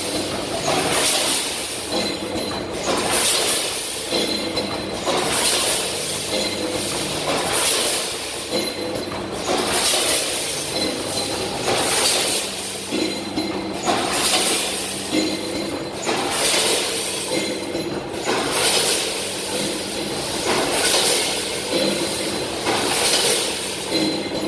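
Vertical form-fill-seal packing machine running through its bagging cycle. A burst of rushing noise repeats about every one and a half to two seconds over a steady faint whine.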